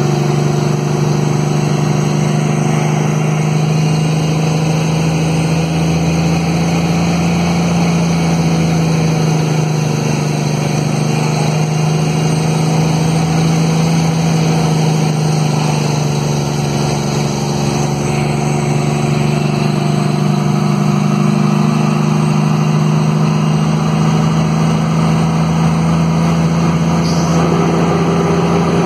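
Kenworth T800's Cummins diesel engine running steadily under engine brake (Jake brake) while the truck descends a long mountain grade, heard from inside the cab; its pitch drifts slightly up and down.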